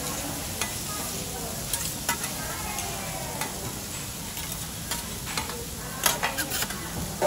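Food sizzling on a teppanyaki griddle, with metal spatulas clicking and scraping on the hot plate every so often and a quick run of sharp clacks near the end.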